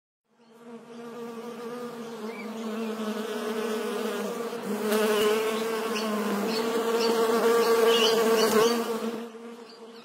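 Cartoon bee buzzing sound effect for an animated logo: a steady, even-pitched drone that swells in over the first few seconds, with a couple of short sharp swishes, then fades out just before the end.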